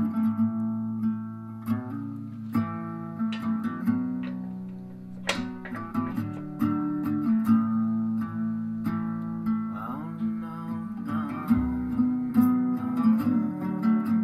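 Background music: acoustic guitar, plucked and strummed, with notes changing steadily.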